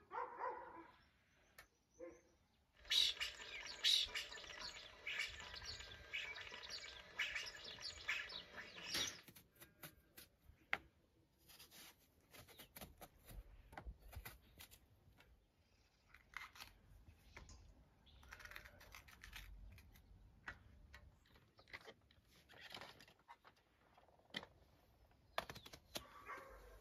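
Birds chirping busily for several seconds, then quieter scattered chirps with soft clicks and scrapes of a knife peeling an eggplant.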